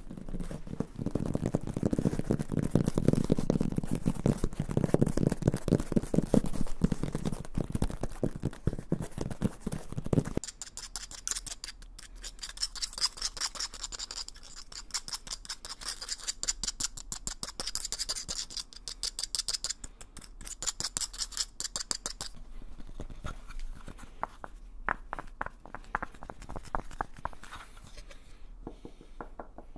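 Fast tapping and scratching with fingertips and nails on a series of handheld objects. For about the first ten seconds it is dense, rapid tapping with a low, full sound on a dark flat pad. Then comes quick, bright nail scratching on a wooden bowl, and in the last few seconds crisp separate taps on a yellow block.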